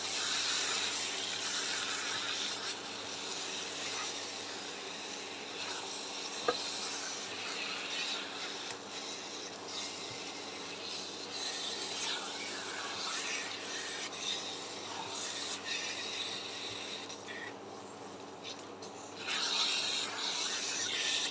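Silicone spatula stirring and scraping a thick mashed-olive pickle mixture around a nonstick frying pan: a steady rasping rub, with one sharp click about six and a half seconds in.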